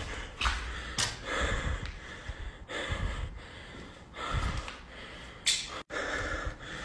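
A person breathing heavily in short, uneven breaths, with a sharp tap about a second in and another near the end.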